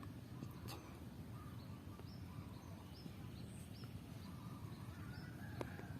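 Faint, short, high bird chirps repeated about three times a second, over a low rumbling background noise.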